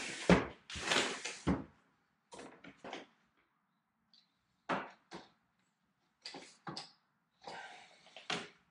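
Lower sash of a new double-hung vinyl window slid up and down in its track, two long sliding runs with a sharp knock, followed by a scatter of light knocks and scrapes as a level is set against the window frame to check it for square.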